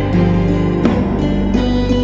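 Background music with guitar-like plucked notes over a steady bass.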